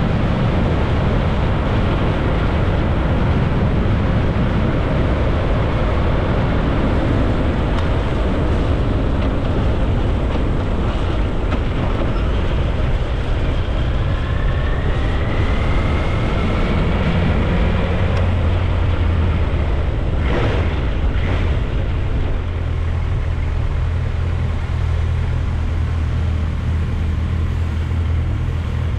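Motorcycle engine running with wind noise on the microphone while riding; late on the wind noise eases as the bike slows, leaving the engine's steady low note. Two short clicks about two-thirds of the way through.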